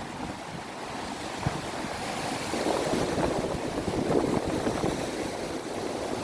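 Strong wind gusting and buffeting the microphone, growing louder a couple of seconds in.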